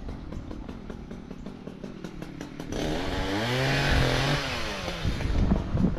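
Chainsaw running: a low, ticking idle for the first few seconds, then revved up louder from about three seconds in, with its pitch wavering as it works.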